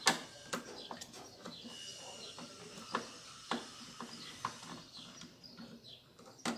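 Light, irregular clicks and taps of hand-tool work, a wrench on metal, as the brake actuator is unbolted from a washing machine's drive mechanism.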